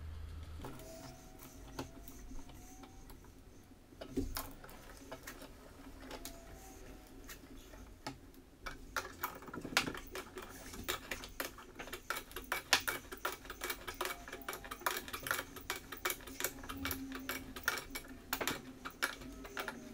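Hand wrench turning the mounting bolts of a metal barn door track into the wall: a run of quick, irregular metal clicks, sparse at first and dense from about halfway through.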